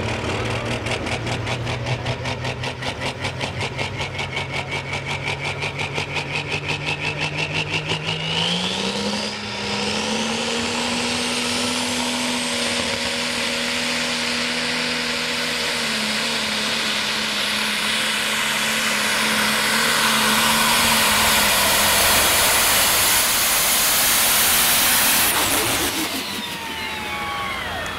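A turbocharged Super Stock/Pro Stock pulling tractor engine makes a run. It lopes with a rising turbo whine, the revs step up about 9 s in, and it is held hard and loud for some fifteen seconds. The engine cuts off sharply near the end, with the whine falling away after.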